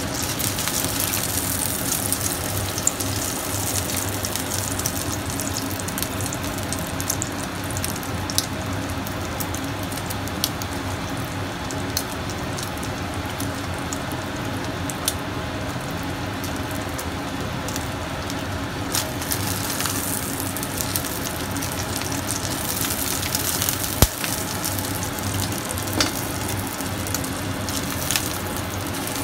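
Oil sizzling steadily in a frying pan around a frying egg-and-oyster omelette, with scattered sharp pops of spitting oil and one louder tick about three-quarters of the way through.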